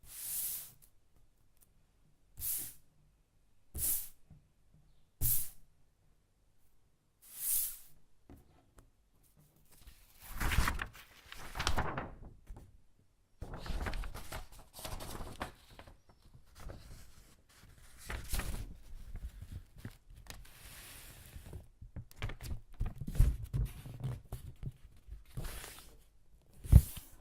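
Household objects handled to make sound effects: five short, separate swishes in the first eight seconds, then longer rustling and scraping stretches with knocks, ending in one sharp click.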